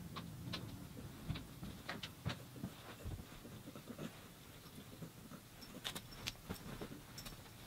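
Scattered light clicks and soft rustles as a cat rolls on its back on a blanket and bats at a feather, with a cluster of clicks near the end over a faint steady low hum.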